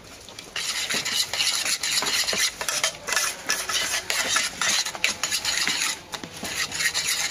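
A utensil stirring and scraping a mixture in a stainless steel bowl: a steady run of quick metallic scrapes and clicks, with short pauses twice.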